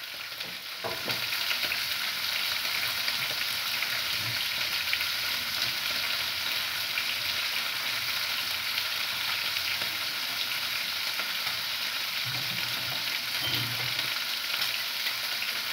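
Food frying in a pan on a gas stove: a steady, even sizzle with fine crackling.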